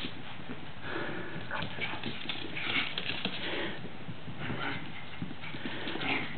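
Pomeranian adult and puppies scuffling on a hardwood floor: many quick claw clicks and scrabbles of paws on the wood, with a few brief high-pitched puppy yips mixed in.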